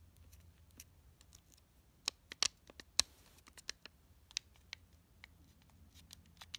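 Scattered light clicks and taps of hands handling an opened laptop, about a dozen, the loudest a sharp click about three seconds in, over a faint steady low hum.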